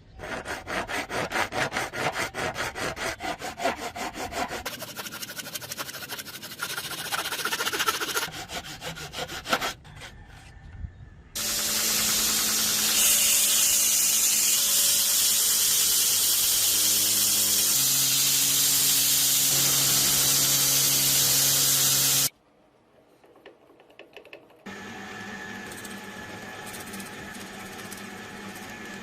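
Metalworking on a steel drill bit: rapid back-and-forth rasping strokes of hand filing or sawing, then a loud steady power tool, such as a grinder, running with a tone that drops partway through. A quieter machine hum follows near the end.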